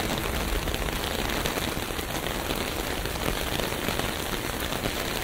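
Steady rainfall: an even hiss with a dense patter of drops.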